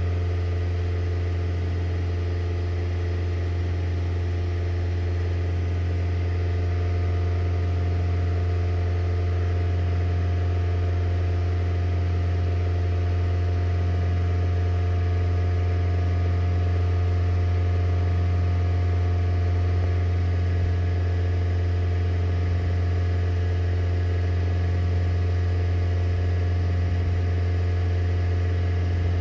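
2004 Honda Civic's 1.7-litre four-cylinder engine running at a steady, unchanging speed, a constant low hum.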